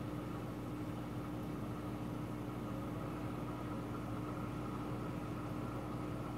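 Steady hum of running aquarium equipment: a constant motor tone under an even hiss.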